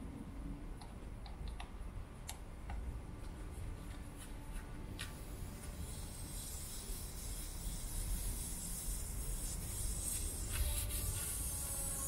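Scattered light clicks and taps of hands and a small tool working at a motorcycle wheel rim and tyre, over low rumbling noise. A high hiss builds from about halfway, and background music with held notes comes in near the end.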